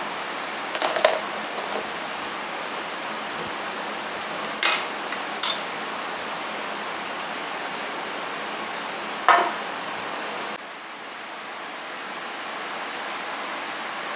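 A few light clinks and knocks of kitchen utensils and dishes, four short clatters spread over several seconds, over a steady hiss that drops away suddenly near the end.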